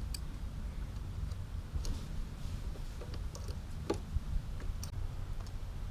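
Scattered faint clicks and ticks of metal mounting hardware being handled and squeezed on a motorcycle pannier rack, at irregular moments over a steady low rumble.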